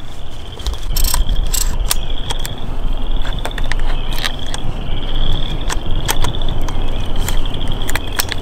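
Frogs calling in repeated pulsing trills, each about a second long, with several sharp clicks and knocks from a shotgun being handled close to the microphone.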